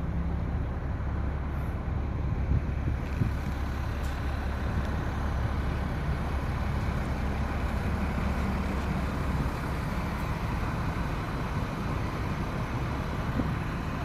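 Strong wind buffeting the phone's microphone in a snowstorm: a steady, gusty low rumble with a hiss of wind over it.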